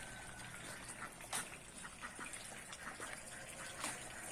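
Dripping water: scattered separate drops over a faint steady hiss, the clearest drop about a second and a half in.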